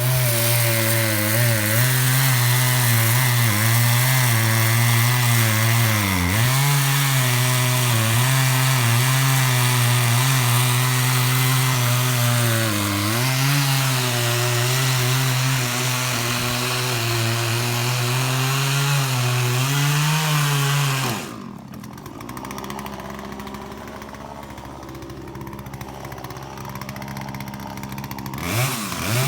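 Gas-powered Poulan Pro chainsaw with an 18-inch bar running at high revs through a pine tree, its pitch dipping now and then as it loads in the cut. About 21 seconds in it drops to idle for several seconds, then revs back up near the end.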